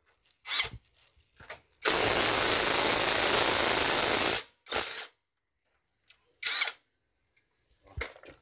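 J-LD 48V cordless impact wrench hammering on a car wheel's lug nut for about two and a half seconds to loosen it. Several short bursts come before and after.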